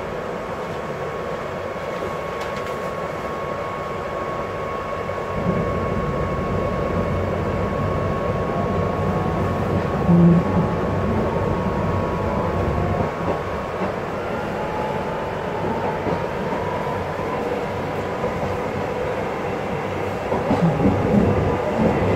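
KRL electric commuter train running, heard from inside the carriage: a steady rumble of wheels on rail with a faint steady whine, growing louder from about five seconds in.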